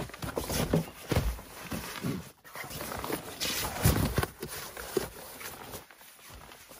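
Sleeping pads being handled and laid out on a carpeted platform: irregular rustling of the fabric, with soft thuds as they are dropped and pressed flat, loudest about a second in and again around four seconds.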